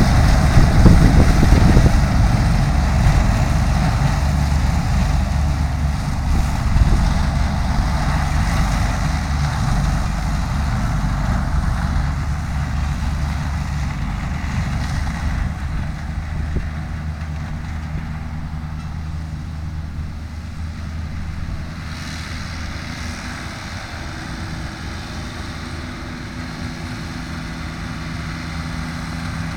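Tractor engine working under load, driving a 1967 Taarup trailed forage harvester as it cuts grass and blows it into a silage trailer. The steady drone fades as the outfit moves away and starts to grow louder again near the end.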